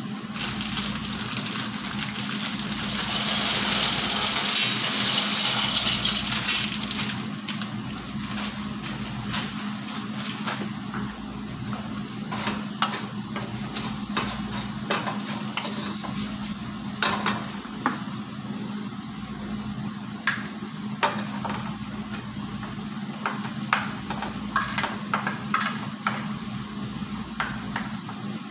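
Minced chicken sizzling in a non-stick frying pan, louder for a few seconds around four to six seconds in, with a spoon clicking and scraping against the pan as it is stirred. A steady low hum runs underneath.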